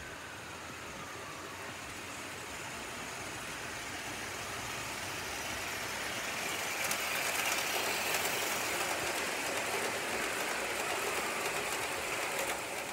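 O gauge model train running along the track: the locomotive's motor and the wheels of the loco and coaches make a steady rolling whirr that grows louder as the train approaches, with a few light clicks about halfway through and near the end.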